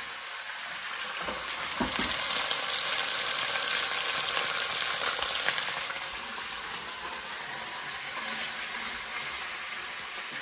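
Cubed raw chicken breast sizzling in oil in a Dutch oven, a steady hiss that grows louder a second or two in and eases off about six seconds in. A couple of low knocks come about two seconds in.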